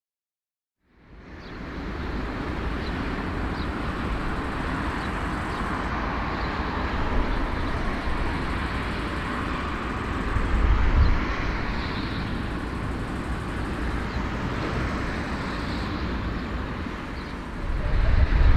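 Steady low rumble and hiss of vehicle or engine noise, starting about a second in after silence, swelling briefly about eleven seconds in and growing louder near the end.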